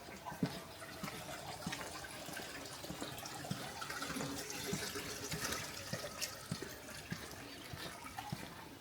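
Water running and trickling, with footsteps about every half second.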